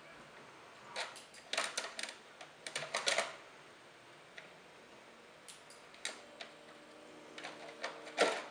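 A kitten's paws and claws knocking and scraping at the open plastic tray and disc of a CD-ROM drive: clusters of sharp clicks and rattles in the first few seconds, then quieter. A faint steady hum comes in after about six seconds, and a loud click sounds near the end.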